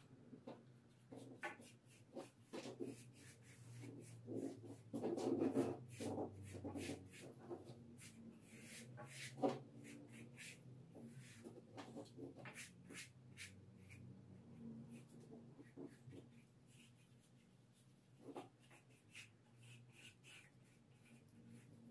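Faint, irregular rubbing and scraping strokes of a small hand tool worked along a painted wooden stair handrail, surface preparation before repainting. The strokes bunch up and grow louder about five seconds in.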